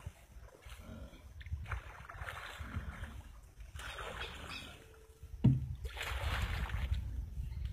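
A flat-bottomed wooden canoe being paddled, the water splashing with each stroke about every two seconds. A single sharp thump comes about five and a half seconds in, the loudest sound, over a steady low rumble.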